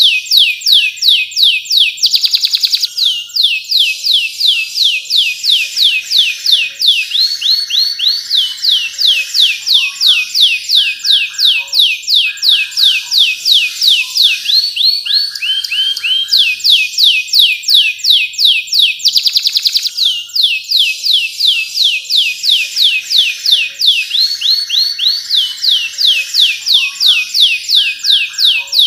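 Domestic canary singing a continuous song of fast trills, each a run of rapidly repeated high, downward-sweeping notes, switching to a new trill every second or two.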